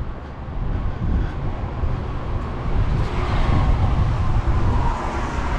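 Outdoor rumble of wind buffeting the microphone over a running motor vehicle, growing louder about three seconds in.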